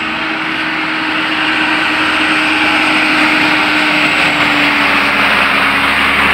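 Diesel dump truck engine running steadily and growing louder, a low hum that sinks slightly in pitch under a broad rushing engine noise.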